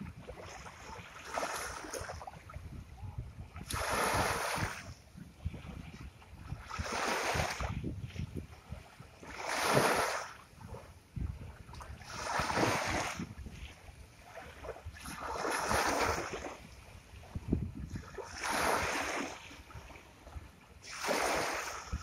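Small waves breaking on a beach, each washing in and drawing back as a rising and fading hiss. About eight waves come in at a steady pace of roughly one every three seconds.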